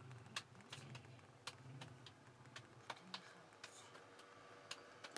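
Faint, sharp clicks and ticks, unevenly spaced at about two to three a second, over quiet background.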